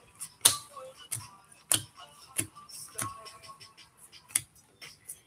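Baseball cards being flipped through and set down one at a time: a run of sharp clicks and snaps, about one every half second or so, with a longer pause before the last one near the end.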